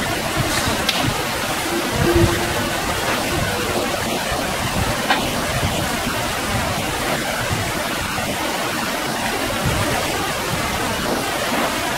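Steady rushing noise of flowing river water, with a few low bumps.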